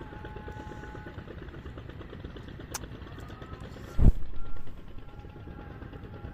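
An engine running steadily with a fast low pulse, with a sharp click and then a loud, low thud about four seconds in.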